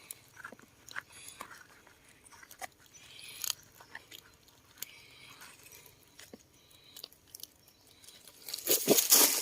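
Scattered scrapes and sharp clicks of digging in forest soil with a small hand spade to unearth land snails, with a louder run of scraping near the end.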